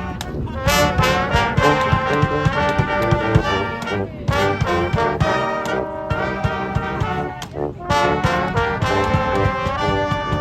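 Live brass band playing an upbeat tune, trombones and trumpets in full harmony over a steady percussion beat.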